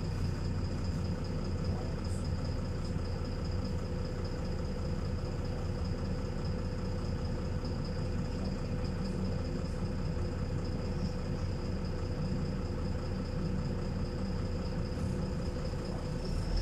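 LiAZ 5292.22 city bus's diesel engine idling steadily, heard from inside the passenger cabin, with a thin steady whine over the low engine note.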